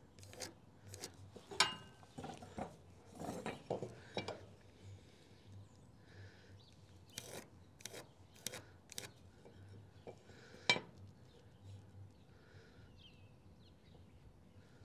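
Pencil scratching along a metal speed square on wooden trailer deck boards, with light clicks and taps as the square is set down and shifted; the loudest tap comes about eleven seconds in.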